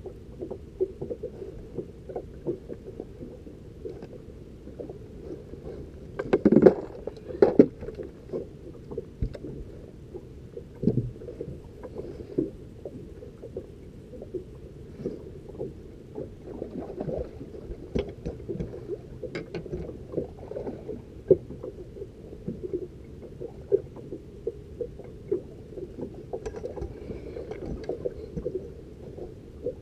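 Water slapping and knocking against a small fishing boat's hull, a steady muffled rumble with scattered sharp knocks and clunks, and a louder run of knocks about six to seven and a half seconds in.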